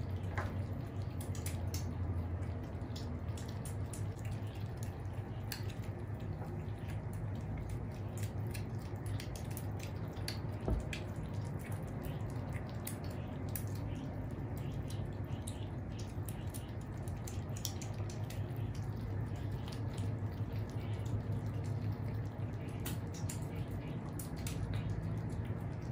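Cats and kittens eating dry kibble from a plate: a continuous patter of small, wet-sounding crunches and clicks of chewing, over a steady low hum.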